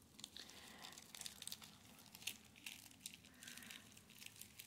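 Faint rustling and crinkling of packaging with scattered light clicks and taps as small kit items are handled and set down on a table.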